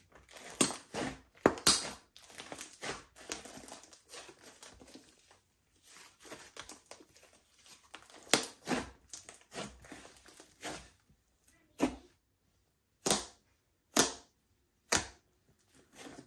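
Slime being kneaded and stretched by hand, with close sticky squishes and small pops. The squishes come in a dense run for about ten seconds, then as single pops about a second apart near the end.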